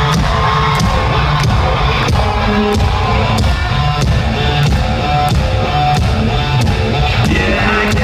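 Rock band playing live through an arena sound system, loud, with electric guitars and a steady drum beat.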